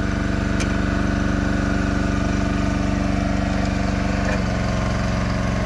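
An engine running steadily, its note changing about four and a half seconds in.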